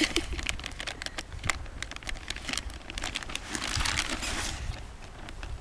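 Crinkling and rustling of a food pouch being handled and pulled open, with many small crackles and clicks; the rustling swells about three and a half seconds in.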